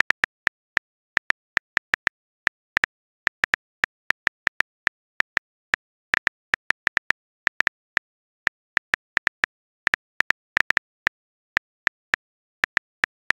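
On-screen phone keyboard typing sound: a rapid, uneven string of short, identical high-pitched key clicks, about four or five a second, one for each letter typed into a message.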